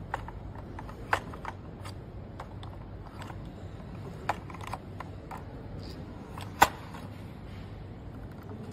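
Sharp plastic clicks and taps as a projector's power-supply circuit board is handled and pressed into its plastic mounting bracket: a handful of separate clicks, the loudest about six and a half seconds in, over a low steady hum.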